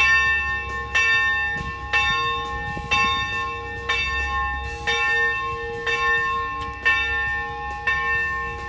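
A single church bell tolling steadily, struck about once a second at the same pitch, each stroke ringing on into the next; rung ahead of the Sunday morning service.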